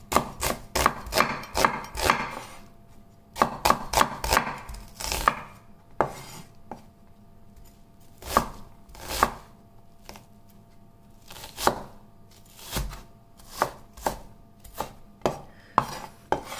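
Chef's knife dicing an onion on a wooden cutting board. Two fast runs of chops come in the first five seconds, then slower single chops about a second apart.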